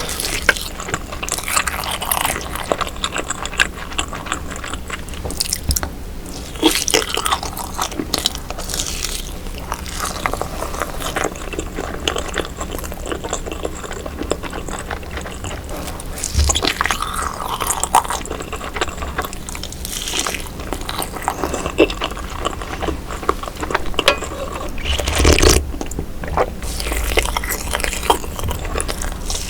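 Close-miked eating of baby octopus (jjukkumi) full of roe: irregular bites and chewing crunches.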